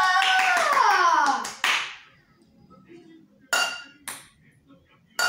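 A boy's voice in a long shout that falls in pitch, ending in a clap; then a small hard plastic ball tossed and bouncing on a stone-tiled floor, three short ringing taps.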